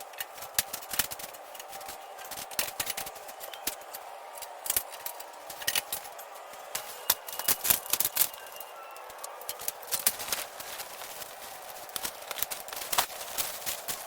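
Irregular sharp clicks and clatters, some in quick clusters, over a steady background hum.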